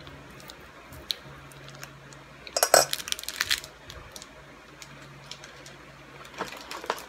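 Metal cheese grater scraping and clinking against a stainless steel pot as a block of cheese is grated, with a loud burst of metallic clanks about two and a half seconds in and a few more near the end. A faint steady hum runs underneath.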